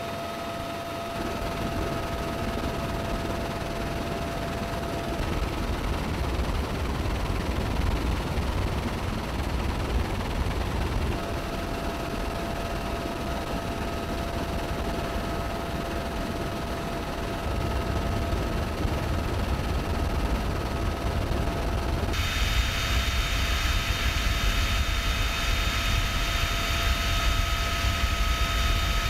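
Military helicopter in flight: steady rotor and turbine engine noise with a constant high whine running through it. About 22 seconds in the sound turns brighter, with more hiss.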